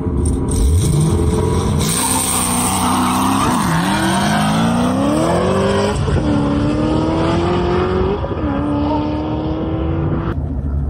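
Cadillac CTS-V V8 and a Ford Mustang launching side by side in a drag race, engines revving hard. Their pitch climbs through the gears, dropping sharply at each of about three shifts.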